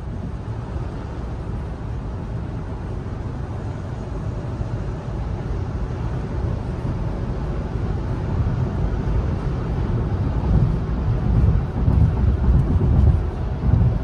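Tire and road noise inside the cabin of a Rivian R1T electric pickup at about 70 mph on new Falken Wildpeak AT all-terrain tires. It is a steady low rumble and hiss with no engine sound, which the owner finds almost negligible. The rumble grows louder and more uneven in the last few seconds.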